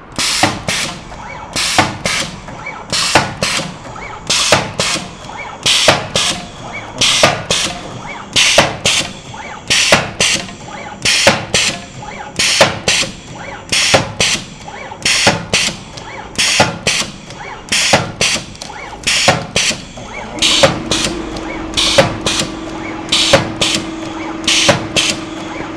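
HC HN two-table automatic hot stamp machine running, stamping red plastic security seals in a steady rhythm of paired sharp strokes, about one pair every second and a half. A steady low hum joins about twenty seconds in.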